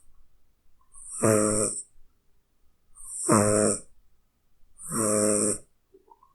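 Cat snoring: three snores about two seconds apart, each under a second long, with a low buzzing tone and a breathy hiss.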